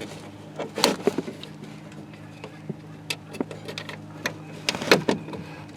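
Scattered short clicks and knocks of a bolt being fitted by hand inside a pickup truck's door shell to secure the inside door handle assembly, over a faint steady hum.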